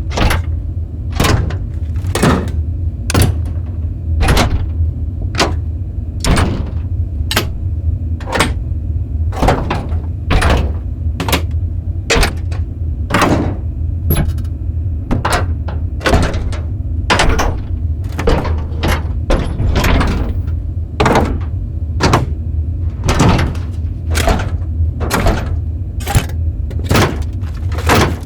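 Large industrial mechanical metal levers being pulled and thrown, one after another: sharp metallic clacks and clunks about once a second, some in quick pairs. A steady low industrial hum runs underneath.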